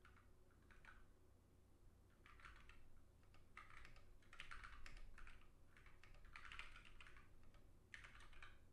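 Faint typing on a ZSA Moonlander split mechanical keyboard: keystrokes clicking in slow, uneven clusters with short pauses between them, as a typist still getting used to the layout picks out each word.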